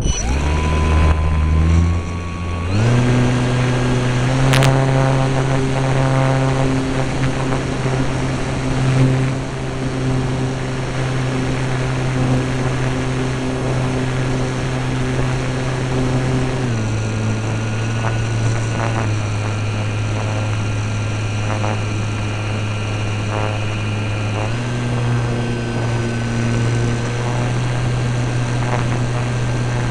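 Electric motor and propeller of an RC airplane, heard from a camera on board. The motor spins up at the start, rising in pitch in steps to full throttle within about three seconds, then runs steadily. It drops to a lower throttle a little past halfway and steps back up about five seconds before the end.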